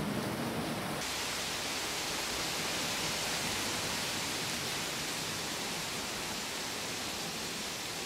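Water spilling steadily over the round rim of a steam pumping station's pump well, a continuous rushing that turns brighter and hissier about a second in.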